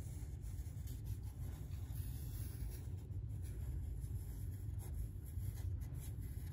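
Black Sharpie permanent marker moving over paper in short strokes as a wavy outline is drawn, a faint scratching, over a steady low rumble.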